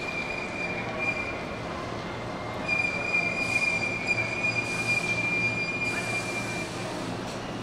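Hankyu electric train's wheels squealing in a high, steady tone over a steady low rumble. The squeal comes briefly at the start, then again from about three seconds in for about four seconds.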